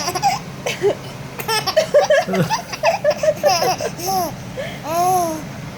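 Baby laughing, a run of high-pitched giggles and squeals one after another.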